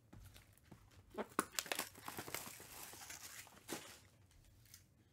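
Plastic wrapping on a trading-card box crinkling and tearing in a flurry of crackles and rustles for about three seconds. It is loudest about a second and a half in.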